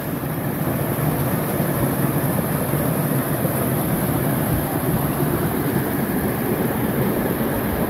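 Creek water pouring in a small cascade over granite boulders, a steady, even rushing.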